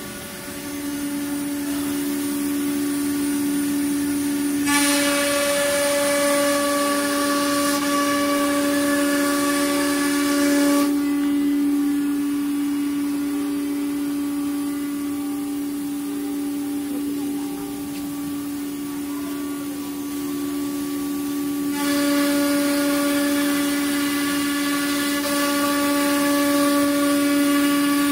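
Spindle of an ATC CNC router whining at a steady pitch. Twice, for about six seconds each time (about five seconds in and again about twenty-two seconds in), it is joined by louder cutting noise, a high hiss with ringing tones, as the bit routes through the furniture panel.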